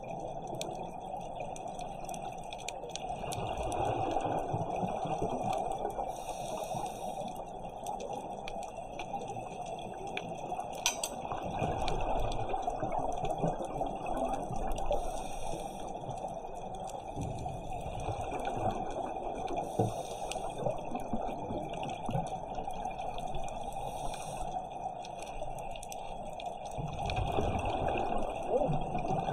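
Underwater ambience on a coral reef: a steady hiss with scattered clicks, with bursts of scuba divers' exhaled bubbles swelling up every few seconds.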